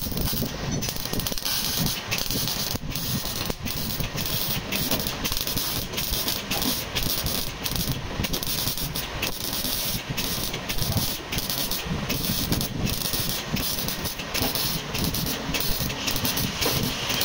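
Electric arc welding on a pickup's steel chassis: a steady crackling hiss, broken again and again by short pauses as the arc stops and restarts.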